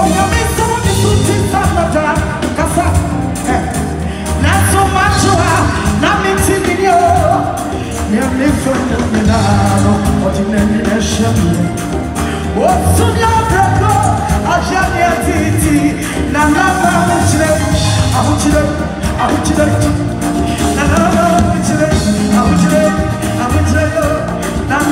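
Live gospel band with a drum kit playing a steady beat while a woman sings lead into a microphone.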